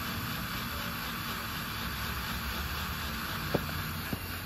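DeWalt cordless drill boring a pilot hole through the bus's sheet-metal skirt panel: a steady grinding whir, with two small clicks near the end. The driller suspects the drill's battery is going flat.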